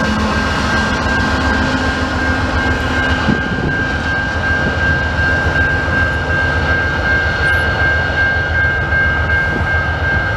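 Railroad crossing bell ringing steadily over the low rumble of a CN diesel freight locomotive moving away; the engine's low drone fades about three seconds in.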